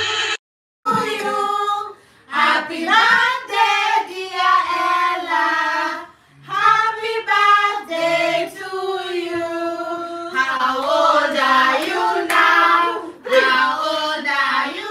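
Several women singing a birthday song together, with some hand clapping toward the end.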